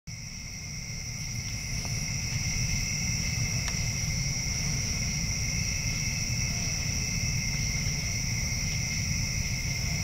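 Night-time insect chorus: steady, unbroken trilling at two pitches, one high and one very high, over a low rumble.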